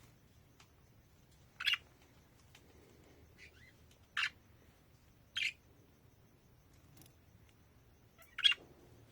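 Budgerigar giving short, sharp chirps, four of them spaced a second to a few seconds apart, with a fainter gliding call in between.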